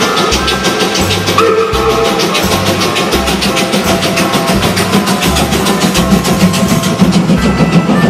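Background music with a steady drum beat and a repeating bass line.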